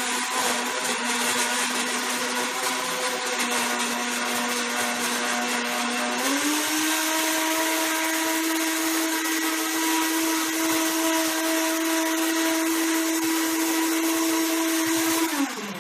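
Countertop blender running, blending pieces of aloe vera leaf with their skin and water into juice. The motor's steady pitch steps up about six seconds in, holds, then winds down just before the end.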